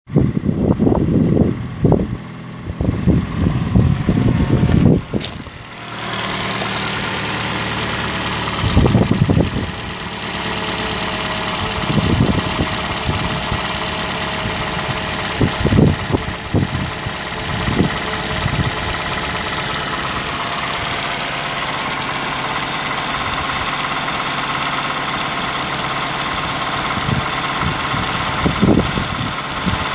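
Toyota 2AR-FE 2.5-litre four-cylinder engine of a 2015 RAV4 idling steadily from about six seconds in. Low rumbling thumps come in the first five seconds and now and then after.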